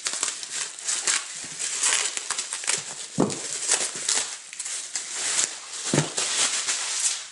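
Bubble wrap and packing tape being pulled off and crumpled by hand, a dense crackling rustle. Two soft thumps, about three seconds in and again near six seconds.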